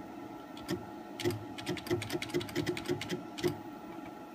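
Stepper motor driving the X axis of a CNC-converted X2 mini mill, jogged in small single steps: about a dozen short buzzing ticks at uneven spacing, each a tiny move of the table.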